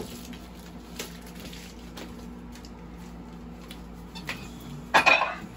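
Steady low hum of clinic equipment, with a few faint clicks and a short rustling clatter of handling noise about five seconds in.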